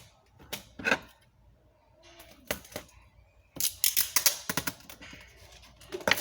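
Sharp clicks and snaps of clear adhesive tape and scissors being handled on a tabletop: a few single clicks, then a quick cluster of them past the middle and another near the end.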